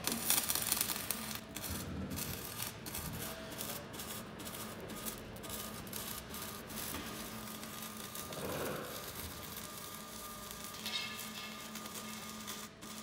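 Electric arc welding on a steel beam: the arc gives a steady crackling sizzle, broken by many brief irregular dropouts.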